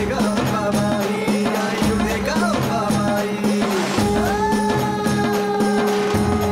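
Background music score with folk-style rattling percussion over a steady low drone. About four seconds in, long held tones come in and sustain.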